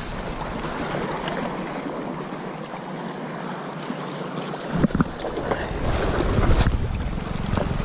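Steady hiss of sea water lapping on a rocky shore. About five seconds in, wind starts buffeting the microphone with a low rumble, and there are a few sharp knocks from handling the fishing rod and camera.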